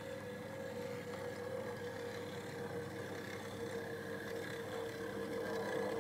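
OO gauge model steam locomotive's electric motor whining steadily as it runs along the track hauling a coach.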